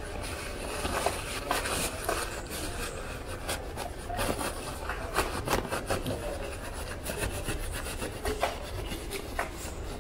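Irregular scraping and rubbing, with short sharp strokes and small clicks, as the inside of a hydraulic disc-brake caliper is scrubbed clean.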